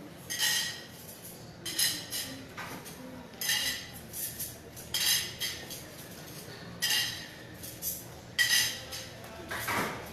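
Metal vessels or utensils clinking in a repeated rhythm, one ringing strike about every second and a half, with a short rising squeak near the end.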